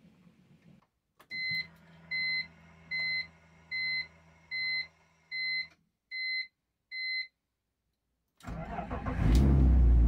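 BMW E46 dashboard warning chime beeping eight times, about one beep every three-quarters of a second, over a faint low hum with the ignition on. Then, near the end, the engine cranks, fires and settles into a steady idle.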